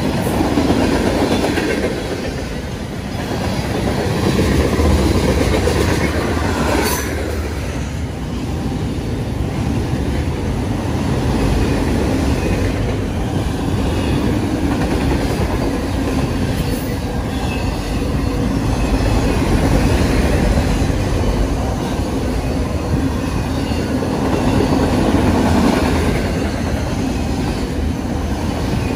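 Freight train cars rolling past close by: steel wheels clattering over the rails with a steady rumble that swells and eases as the cars go by, and a brief sharp metallic sound about seven seconds in.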